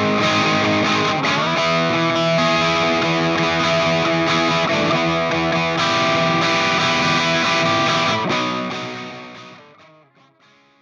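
Electric guitar played through distortion and effects, with sustained notes and chords ringing together. About eight seconds in the sound starts to die away, fading to almost nothing by the end.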